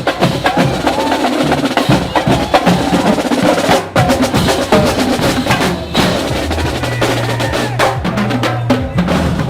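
Marching band playing a loud, drum-heavy tune, with snare and bass drums driving the beat under sustained low brass notes. The music stops briefly twice, about four and six seconds in.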